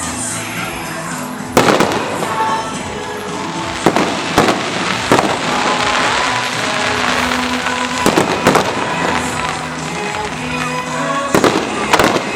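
Aerial fireworks bursting, about eight sharp bangs over a dozen seconds, some in quick pairs, with a spell of crackling in the middle, over music.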